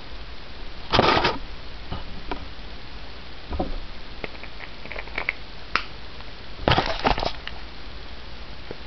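Handling noise: two bursts of clattering knocks, about a second in and again near seven seconds, with scattered small clicks between, as a camera and hard objects are picked up and moved on a table, over a steady hiss.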